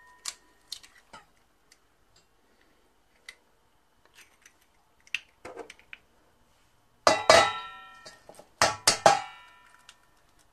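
Eggs tapped and cracked against the rim of a stainless steel mixing bowl: scattered small clicks, then two loud knocks in the second half, each setting the bowl ringing.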